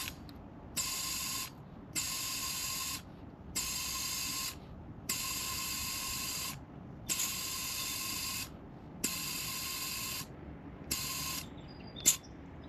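Compressed air hissing into a car tire through an air chuck held on the valve stem, filling it toward 35 PSI. It comes in seven short bursts, each starting with a click and carrying a faint whistle, with a sharp click near the end.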